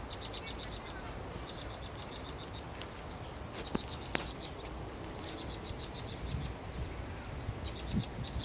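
Vinous-throated parrotbills giving rapid, high-pitched chattering alarm calls in four short bursts of about ten notes a second, set off by an attacking Eurasian jay. Two sharp clicks come about halfway through.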